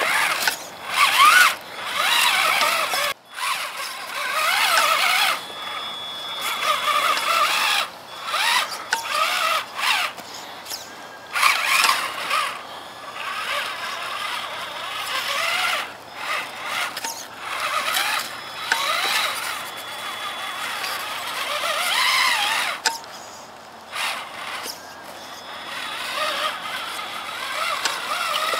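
Traxxas Summit RC truck's electric motor and geared drivetrain whining in stop-start bursts, the pitch rising and falling with the throttle as it crawls over a dirt mound.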